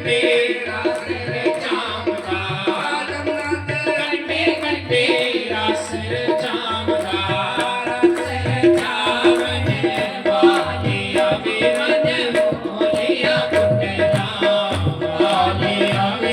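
Devotional bhajan music: hand drums keep a steady rhythm under held melody notes, with no clear lyrics.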